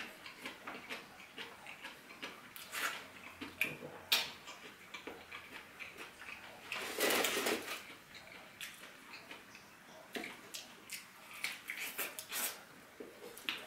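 Fork and fingers working food on a plate: a string of short clicks and taps of metal on the plate, with a louder, noisier stretch lasting under a second about seven seconds in.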